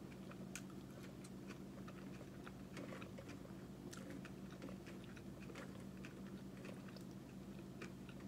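Close-miked chewing with the mouth closed: soft, scattered wet clicks and crackles of fast food being eaten, over a steady low hum.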